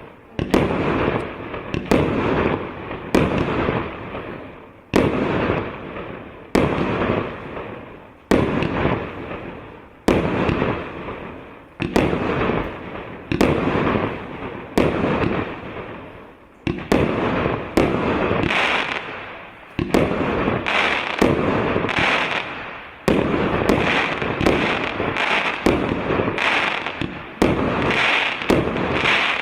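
A 168-shot, 1.25-inch consumer fireworks cake firing shot after shot: each sharp bang trails off in a fading hiss. The shots come about one every second or so at first and speed up to nearly two a second from about halfway through.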